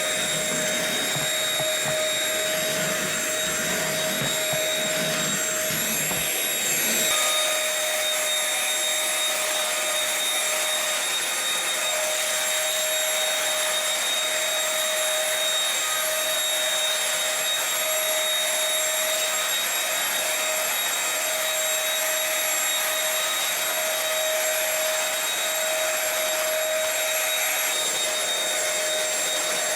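Dirt Devil SimpliStik corded stick vacuum running steadily: a motor whine over a rush of air. About seven seconds in, the low rumble drops out and the whine carries on.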